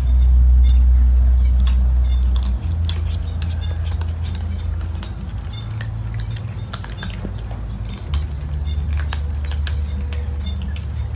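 Several cats crunching dry kibble: a scatter of short, sharp crunches and clicks. Beneath them runs a loud low rumble that shifts in pitch a few times.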